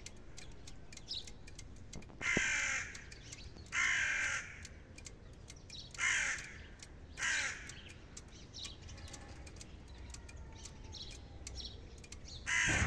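A crow cawing four times, harsh calls about a second and a half apart, with another caw starting near the end. Faint small-bird chirps sound in between.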